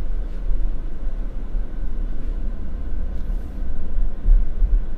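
Steady low rumble of a car driving, the engine and tyre noise heard from inside the cabin.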